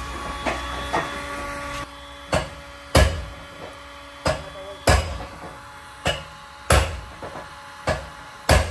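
Dent-puller slide hammer knocking as it yanks on a pulling tab attached to a car's rocker panel: four pairs of sharp metal knocks, a lighter one followed by a louder one. A steady hum stops about two seconds in, before the knocking starts.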